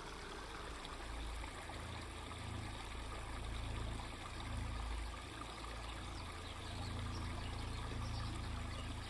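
Small rocky woodland brook trickling and splashing over stones: a steady rush of running water. A low hum swells twice beneath it.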